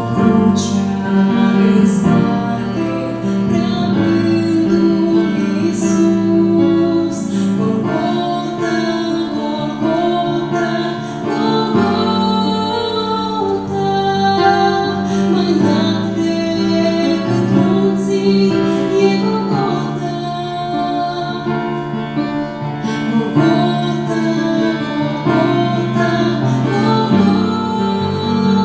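A woman singing a Christian worship song into a microphone, with instrumental accompaniment.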